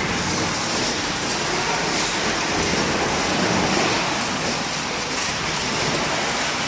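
Double-shaft shredder tearing up a scrapped car body shell, its metal being pulled into the cutters. It makes a loud, steady, dense grinding noise with no letup.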